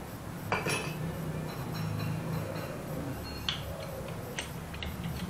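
Metal hand tools clinking and ticking against a motorcycle engine's cylinder head, a few separate sharp clicks, the loudest about half a second in, over a low steady hum.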